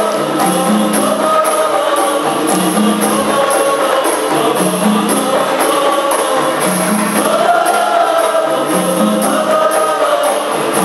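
Qasidah music: a boys' group singing a melodic line together, accompanied by rebana frame drums and jingling tambourines in a steady repeating rhythm.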